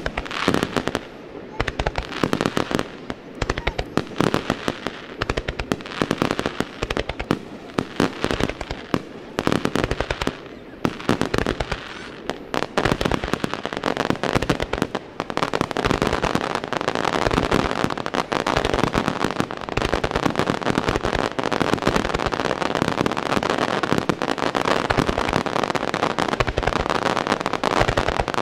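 Wide starmine fireworks barrage: aerial shells bursting in rapid succession, bang after bang with crackle. From about halfway through, the bursts pile into a dense, nearly continuous rattle.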